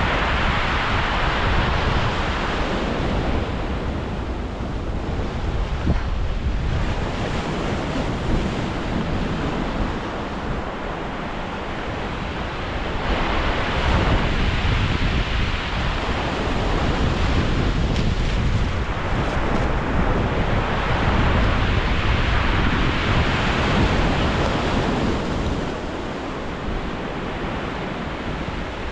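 Strong storm wind of about 40 mph buffeting the microphone, over sea waves surging and breaking on the shore. The rush of noise swells and eases every few seconds.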